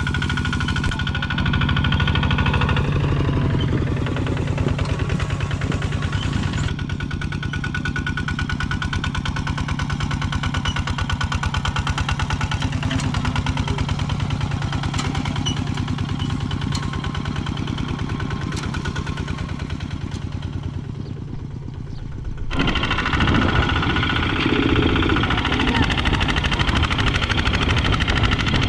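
Single-cylinder diesel engine of a two-wheel walking tractor running under load as it pulls a trailer loaded with straw: a rapid, even chugging. The sound shifts abruptly twice and becomes louder near the end.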